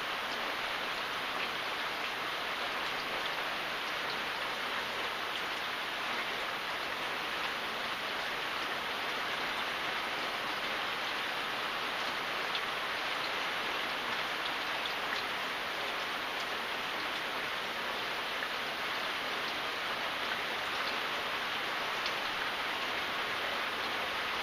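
Steady rain falling, an even hiss of many drops with scattered individual drop ticks.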